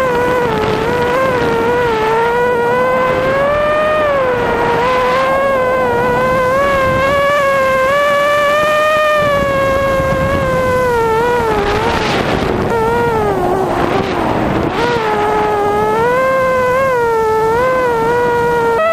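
A small engine running steadily with a high-pitched drone, its pitch wavering slowly up and down.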